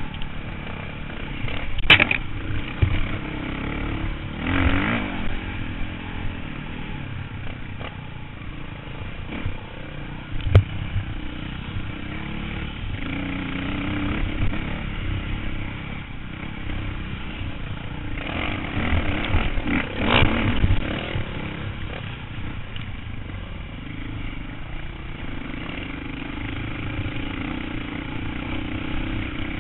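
Dirt bike engine running under way on a trail, its pitch rising and falling as the throttle opens and closes. Two sharp knocks stand out, about 2 and 10 seconds in.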